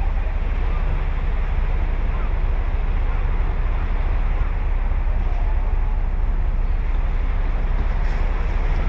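Ocean waves breaking and washing ashore in a steady rush, with wind buffeting the microphone as a low rumble.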